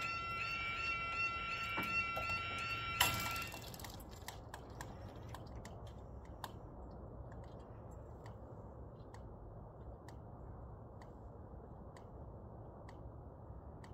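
Level crossing yodalarms sounding, one of them faulty and giving a strange, steady tone. About three seconds in there is a clunk, and the alarms cut off just after it as the barriers come down. Faint scattered clicks follow.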